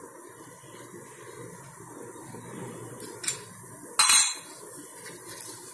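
A sharp clack against a hard cutting board about four seconds in, with a smaller click a little before it, as sev-coated chapati cones are handled and set down. Faint handling noise runs beneath.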